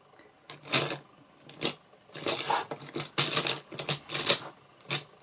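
Makeup brushes clattering and clicking against each other and their holder as they are sorted through, in a string of irregular rattles from about half a second in.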